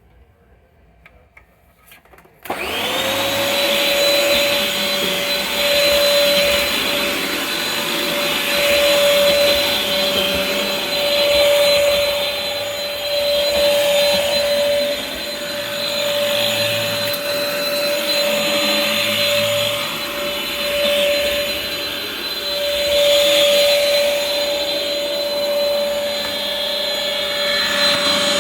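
Sanitare Multi-Pro commercial upright vacuum switched on after a few faint clicks about two seconds in. Its motor spins up within a fraction of a second, then runs steadily with a whine, its loudness swelling and dipping slightly.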